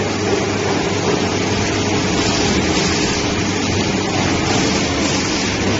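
L-bar sealer and shrink-tunnel packaging machine running: a steady mechanical whir with a low hum, even throughout.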